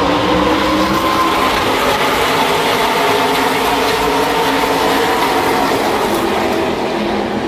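A full field of NASCAR race trucks passing together at the start of the race, their V8 engines at full throttle. The engine noise is loud and steady, with several engine pitches overlapping and drifting slightly.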